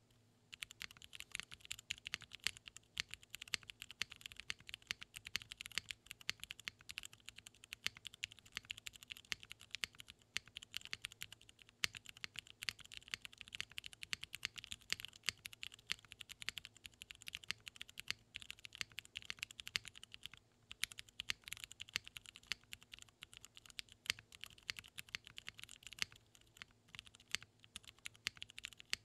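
Fast, continuous typing on a Vertex Arc60 mechanical keyboard: broken-in, lubed Cherry MX Purple switches in an aluminium plate under ABS keycaps, clacking in quick runs with a couple of brief pauses.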